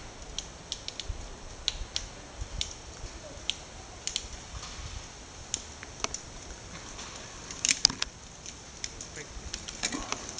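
Irregular sharp clicks and crackles, about one or two a second, with a quick cluster of louder clicks about three quarters of the way through, over a steady high hiss.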